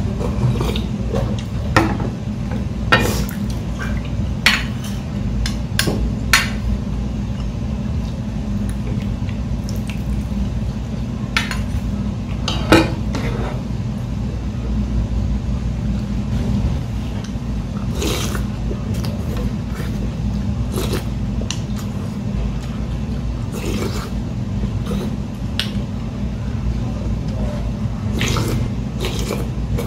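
Metal ladle and spoon clinking now and then against ceramic bowls as broth is ladled and poured from a large bowl into a small one, over a steady low hum.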